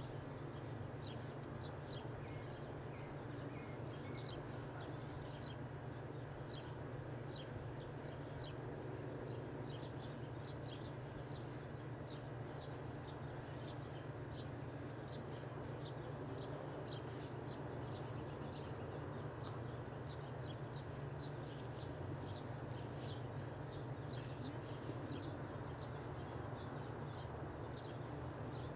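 Outdoor ambience: small birds chirping, short high chirps a few times a second, over a steady low hum.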